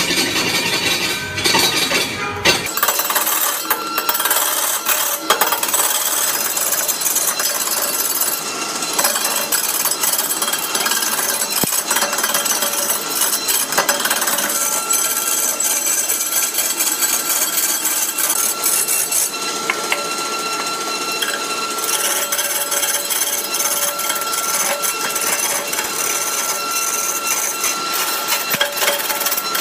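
Turning tool cutting into a large wooden blank spinning on a lathe: a continuous harsh scraping and rapid rattling of the chisel against the wood.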